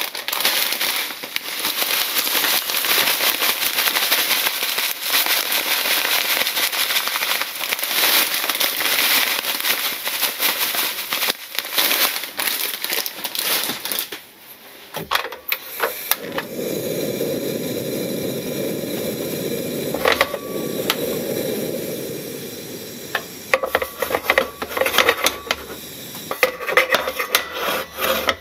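Panko bread crumbs being dry-toasted in a steel frying pan: a dense crackle, then after a brief lull a steadier lower rushing, and in the last few seconds a run of quick scrapes and clicks as the crumbs are stirred in the pan.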